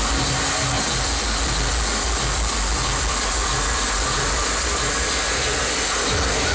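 Industrial hardcore music over a festival sound system, heard as a distorted, rumbling wall of bass and hiss through an overloaded camera microphone.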